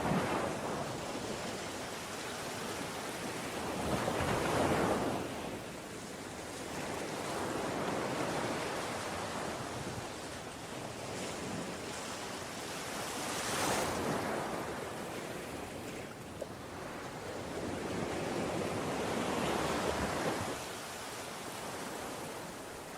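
Ocean waves breaking and washing on the shore, a steady hiss of surf that swells with each wave about every five seconds.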